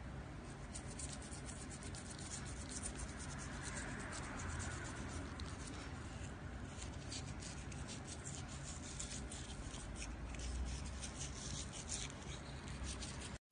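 Toothbrush bristles scrubbing a cat's teeth: quick, scratchy brushing strokes close to the microphone, stopping abruptly near the end.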